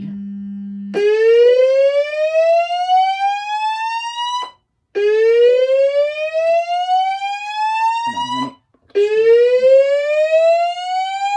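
Notifier DVC voice evacuation system playing its slow-whoop alert tone through the speakers: three rising sweeps, each climbing for about three and a half seconds and then cutting off, with short gaps between them. This is the alert tone that precedes the standard fire evacuation message. A steady low hum comes just before the first sweep.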